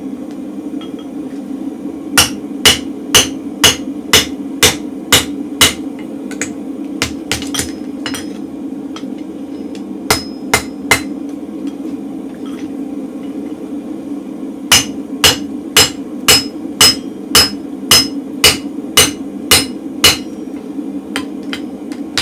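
Hand hammer striking a punch and drift through a red-hot mild-steel bar on an anvil, punching holes, the blows ringing off the anvil. There are two runs of heavy blows at about two a second, with a few lighter strikes between them. A steady low roar, from the gas forge, runs underneath.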